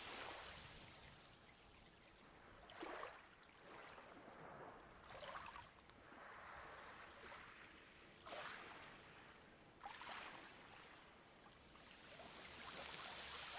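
Faint light waves washing onto a pebble beach, with small splashes every two to three seconds and a swell rising again near the end.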